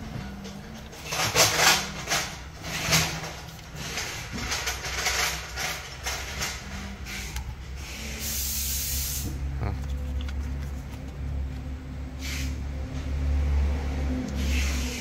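Backing paper being peeled off double-sided 3M adhesive foam pads and the pads rubbed down onto a steel frame tube: a run of short rustles and scrapes, with one longer peeling hiss about eight seconds in. A low hum runs underneath, stronger in the second half.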